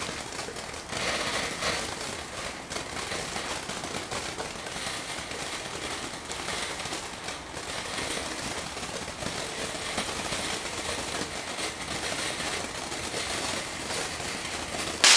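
Consumer firework fountain burning with steady, dense crackling, then a single loud pop near the end: the fountain's one-pop finish.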